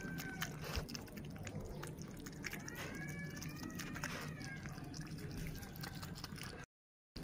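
A young animal's thin, high, wavering whimper, one long cry from about two and a half seconds in, over light clicking sounds of eating. The sound cuts out briefly near the end.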